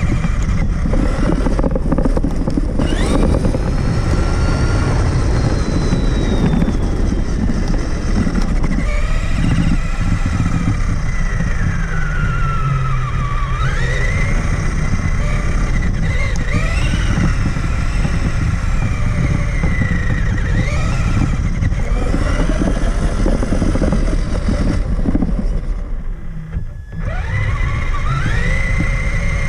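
Traxxas Summit RC truck's electric motor and drivetrain whining, rising and falling in pitch with the throttle, over a loud rumble from the chassis and tyres shaking the top-mounted camera. Near the end the whine briefly drops away, then climbs again as the truck accelerates.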